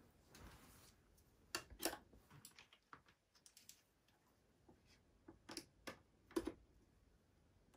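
Faint scattered clicks and taps from handling a string of thin-wire USB fairy lights and plugging its USB end in. There are about a dozen short clicks, the sharpest about two seconds in and again near the end.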